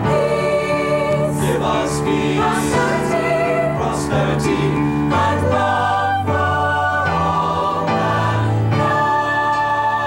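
Mixed choir of high school singers performing in harmony over held low notes, settling on a long held chord near the end.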